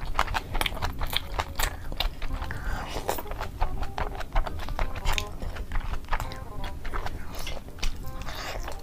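Close-miked eating sounds: wet chewing and biting of big mouthfuls, with many small clicks, over background music.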